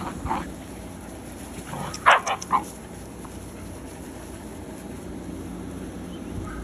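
Sheepadoodle puppies barking: one short bark just after the start, then three quick barks about two seconds in.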